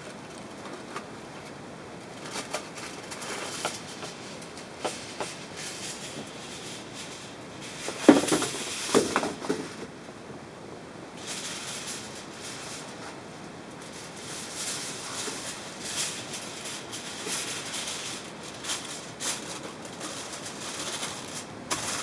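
Aluminium foil being pulled from its box, torn off and crinkled as it is handled, with a louder cluster of rustling and tearing about eight seconds in and denser crinkling after that.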